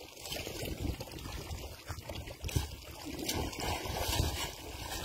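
Shallow water sloshing and splashing as people wade and drag a fishing net through it, with a few sharper splashes in the second half.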